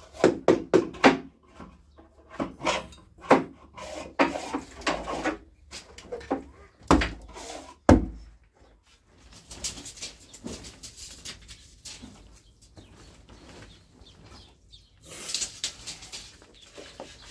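Wood being worked by hand: a quick series of wooden knocks and taps, then two heavier thumps about seven and eight seconds in, followed by softer rubbing and scraping.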